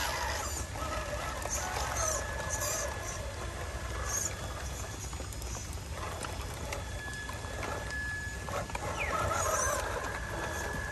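Birds calling and chattering in the surrounding forest. A thin, steady high whine runs under them for much of the time.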